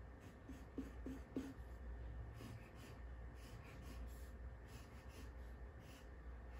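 Pencil scratching on paper in short, faint strokes as a drawing is sketched.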